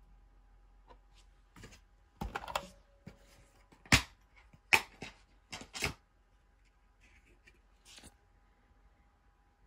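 Plastic DVD case being handled and opened: a string of sharp clicks and snaps as the case is opened and the disc is unclipped from the hub. The loudest snap comes about four seconds in, with fainter clicks near the end.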